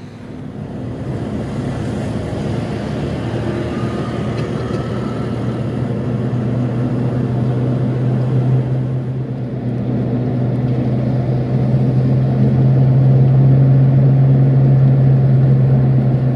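Car engine and road noise heard from inside the cabin while driving, a steady low drone that grows louder through the second half.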